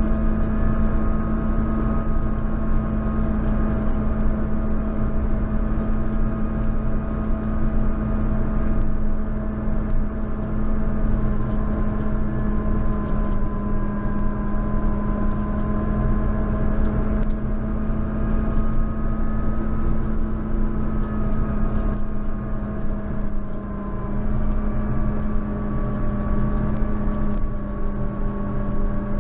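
JCB Fastrac 4220 tractor running steadily while plowing snow: a constant engine drone with a low hum and several whining tones that drift slightly up and down in pitch.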